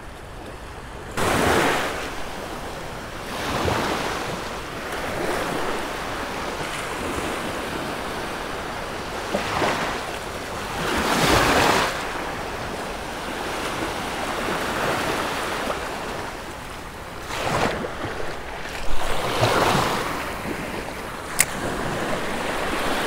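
Small waves breaking and washing up the sand, surging and fading every few seconds, with wind buffeting the microphone.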